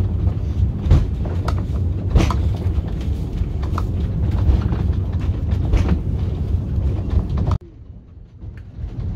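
Stanserhorn funicular's wooden carriage running down the track: a loud steady low rumble with a few sharp clacks from the wheels and rails. The rumble cuts off suddenly about three quarters of the way through, leaving a much quieter background.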